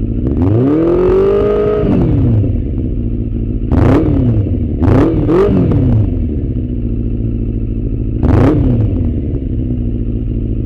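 Yamaha FZS600 Fazer's inline four-cylinder engine idling through a full Black Widow stainless steel aftermarket exhaust, blipped on the throttle. One longer rev rises and falls, followed by four short sharp revs, the middle two close together, each dropping back to idle.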